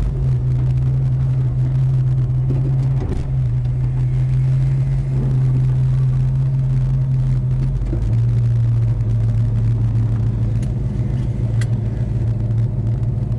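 A Dodge Charger's engine running at low speed and idling, heard from inside the car's cabin as a steady low engine note. Its pitch shifts slightly about three seconds in and steps down a little near eight seconds.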